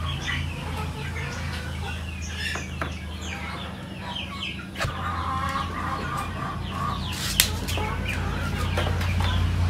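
Chickens clucking, with a steady low hum underneath and a sharp knock about seven seconds in.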